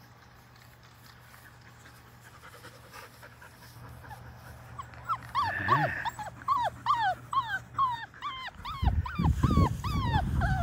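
Labrador Retriever puppy whimpering: a quick run of short, high, falling whines, about three a second, starting about halfway through. Near the end there is low rubbing noise as a dog's fur brushes against the microphone.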